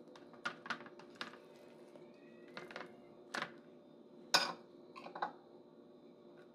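Light, scattered taps and clicks of hands and utensils against a ceramic plate and bowls as enchiladas are rolled and filled, the loudest about four and a half seconds in, over a faint steady hum.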